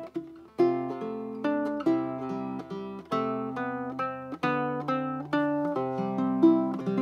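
Baritone ukulele with a curly Port Orford cedar top and grafted walnut back and sides, fingerpicked in a gentle run of single notes and chords that ring into one another.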